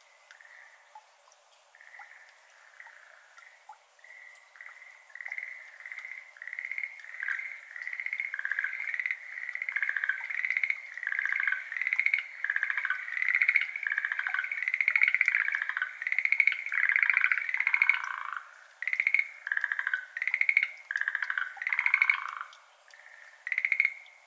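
Schlegel's green tree frogs calling: short trilled calls, faint at first, building into a dense overlapping chorus midway, then thinning to separate calls near the end.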